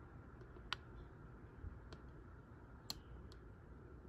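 Quiet room tone with a few faint clicks; two sharper clicks stand out, about two seconds apart.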